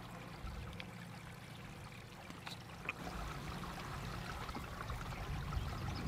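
Faint, steady rushing of running water, like a small stream trickling, growing slightly louder about halfway, with a few faint high ticks over it.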